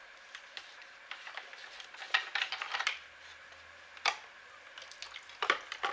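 Scattered small clicks and light knocks of the canister's unscrewed top fittings being handled and set down, with one sharper knock about four seconds in.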